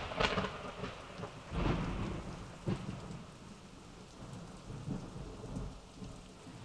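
Rain falling with low rumbles of thunder, swelling about one and a half seconds in.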